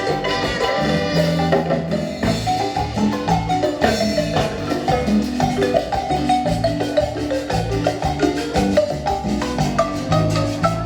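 Marimba ensemble playing a lively piece, with quick repeated mallet strokes over a steady bass line.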